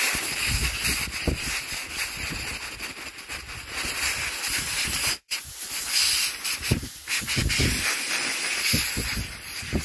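Compressed-air blow gun blowing out a carburettor float bowl: a loud, steady hiss of air, cut off briefly about five seconds in, then a second long blast.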